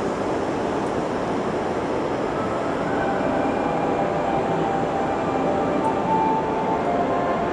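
Steady running noise of a shinkansen high-speed train at a station platform, a dense even rush with a few faint steady tones a little past halfway.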